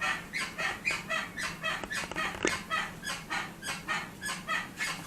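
Porsche Cayenne squeaking in a quick, even series of short high squeaks, several a second. The mechanic traces the squeak to the rear upper suspension bushing (silent block).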